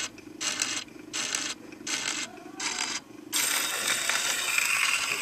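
Steel needle of a Sonora wind-up phonograph riding the lead-in of a spinning 78 rpm record, scratching once per turn, about every three-quarters of a second. About three seconds in this gives way to a steady hiss of surface noise as the grooves start to play.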